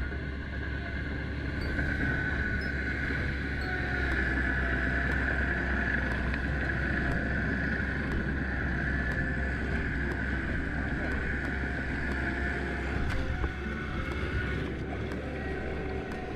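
Tractor engine running steadily as it works a flooded rice paddy, with a steady high whine over the low drone.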